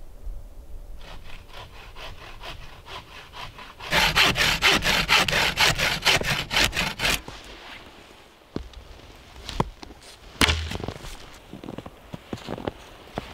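A wooden-framed bow saw cuts through a thin sapling trunk. A few light strokes start the cut, then about three seconds of quick, loud back-and-forth strokes follow. After the sawing, a few separate sharp knocks are heard.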